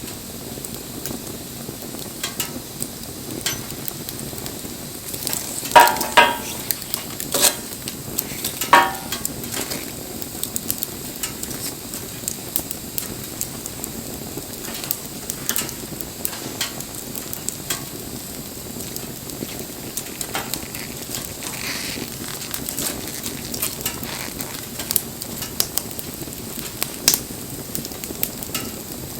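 Wood fire burning with a steady hiss and scattered sharp crackles and snaps, with a cluster of louder pops about six seconds in and again about nine seconds in.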